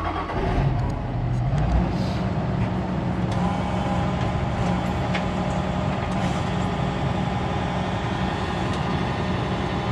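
Farm sprayer's engine running steadily, picking up a little in the first couple of seconds, during a test of whether the boom's next section will fold out.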